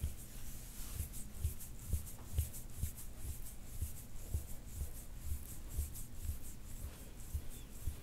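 Quick repeated strokes of a soft-tissue scraping tool over the skin of a back, about two strokes a second, each with a soft thump and a short scrape.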